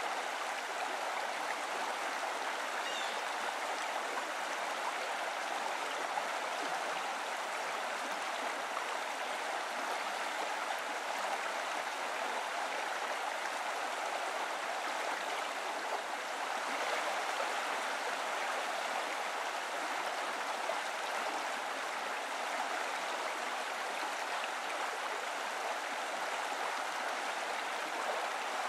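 Flowing water of a stream rushing steadily.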